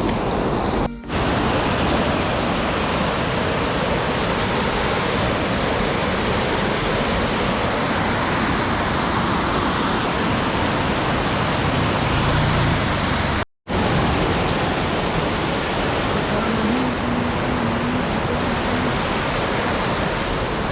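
Steady loud rushing noise with no distinct tones, cut off for an instant about a second in and again near the middle.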